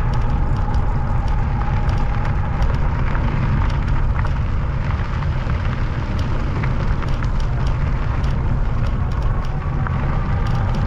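Wind buffeting the microphone with tyre noise from an e-bike ridden along at steady speed, carrying a faint steady whine and scattered small ticks.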